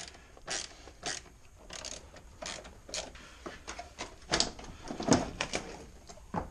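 Hand ratchet clicking in short strokes, about two a second, loosening the battery hold-down. A few louder clunks follow about four to five seconds in as the hold-down bar is handled.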